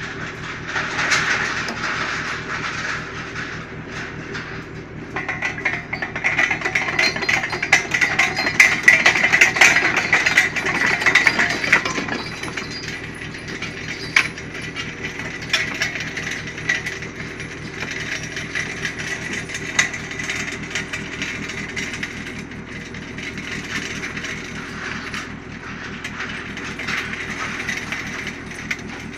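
A fishing trawler's diesel engine running steadily, with stretches of hissing noise and scattered rattling clicks over it, heaviest about a second in and again from about five to twelve seconds in.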